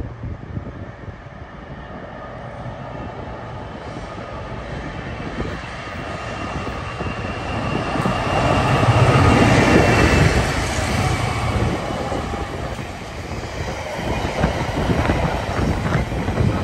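A Freightliner Class 66 diesel locomotive approaches and passes at the head of a container freight train, loudest about nine to eleven seconds in. The loaded container wagons follow, rolling past with a clickety-clack of wheels near the end.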